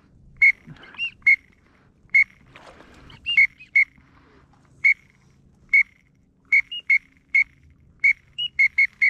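A teal whistle call blown in short, sharp peeps, singly and in quick runs of two or three, with an occasional note that rises and falls, used to call in a flock of teal.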